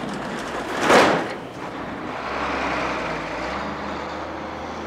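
Box truck engine running as the truck pulls away, after a loud, short rush of noise about a second in.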